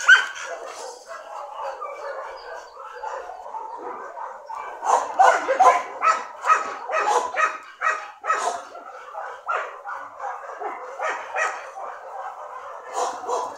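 A dog barking and yipping in short repeated barks, with a sharp yelp right at the start and a quick run of louder barks from about five to nine seconds in.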